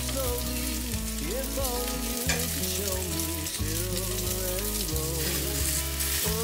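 Hamburger patties sizzling in a nonstick frying pan, with background music playing over it.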